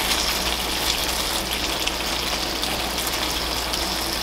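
Crab curry simmering hard in a frying pan, its gravy bubbling and sizzling steadily.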